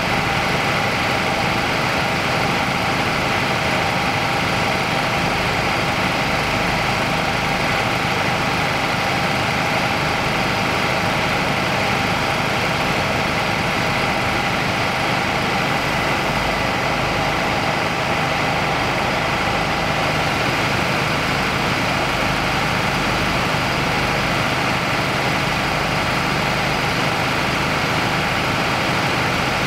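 A heavy engine running steadily at idle, holding the same pitch and level throughout.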